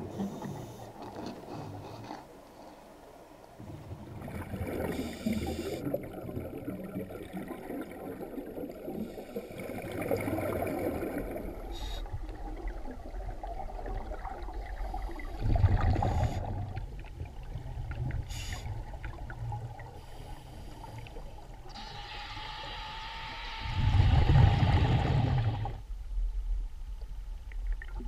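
Scuba exhaust bubbles gurgling and bubbling underwater, picked up through a camera housing, in irregular spells with two louder bursts of bubbles, one about halfway through and one near the end.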